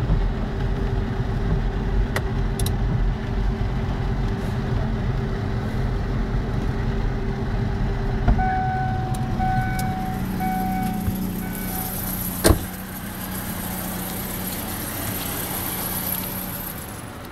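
Car running, heard from close by, with a steady low rumble. About eight seconds in the rumble drops and a chime beeps four or five times at even spacing, then a single sharp knock sounds.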